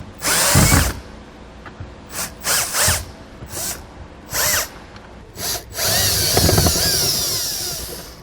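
Power drill-driver spinning in short trigger pulses, then one longer run of about two seconds near the end, backing Phillips head screws out of a plastic trim panel.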